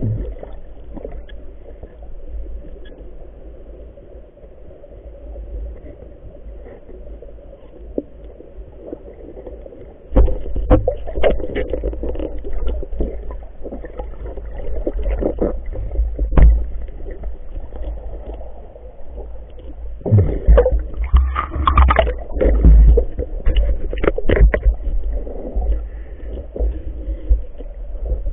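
Underwater noise picked up by a submerged camera: a low, muffled rumble of moving water with scattered sharp clicks and knocks, louder from about ten seconds in and busiest a little after twenty seconds.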